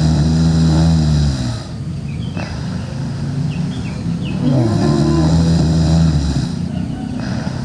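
A sleeping girl snoring loudly. One low, droning snore is already under way and ends about a second and a half in, and a second one comes about three seconds later and lasts about two seconds. Quieter breathing fills the pause between them.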